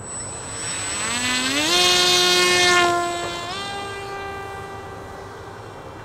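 Electric motor and propeller of an Arcus M RC sailplane spooling up at launch: a whine that rises steeply in pitch about a second in, holds, steps up again a little past three seconds, then fades as the glider climbs away.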